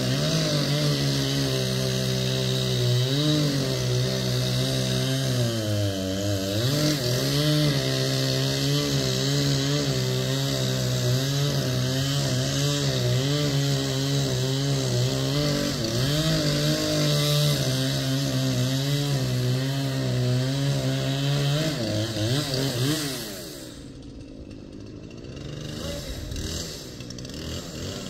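Chainsaw running at high revs, its pitch dipping again and again as it bogs down in the wood, then falling away sharply a few seconds before the end.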